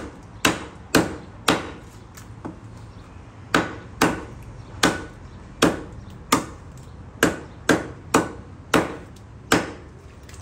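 Steel meat cleaver chopping through raw chicken onto a round wooden log chopping block: a series of about fourteen sharp chops, mostly about half a second apart, with a pause of about two seconds after the first three.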